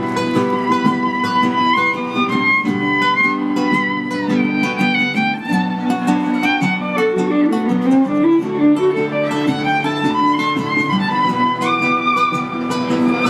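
Live violin and two acoustic guitars playing together, the guitars plucking and strumming under held violin notes, with a climbing run of notes about halfway through.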